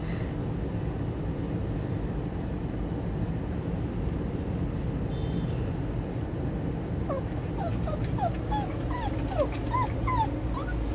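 Small white long-haired dog crying in the back seat of a car: short, high, wavering whimpers that start about seven seconds in and come more often toward the end, over the steady low rumble of the car cabin.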